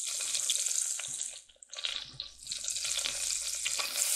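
Butter sizzling and crackling as it melts in a pot. The hiss drops away briefly about a second and a half in, then comes back louder near the end.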